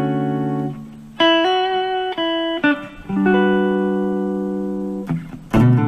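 Guitar playing a chord-embellishment phrase in double stops. A chord rings out and fades, then a few quick two-note figures follow. Another chord is held ringing for about two seconds before new notes come in near the end.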